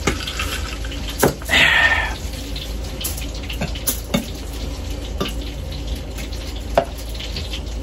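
Table sounds of a meal: forks clinking and scraping on a plate, with a glass set down on the table, a short rustling hiss about a second and a half in, and a few sharp clicks over a steady low hum.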